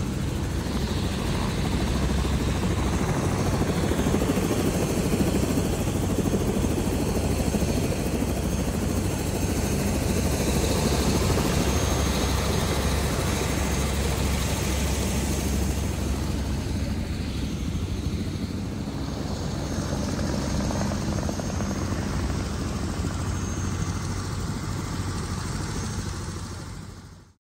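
Helicopter running on the ground: a steady rotor and turbine drone with a thin high whine, fading out near the end.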